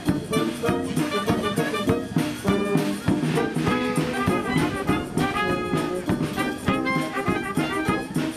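Brass-led, jazzy dance music with trumpets and trombones over a steady quick beat.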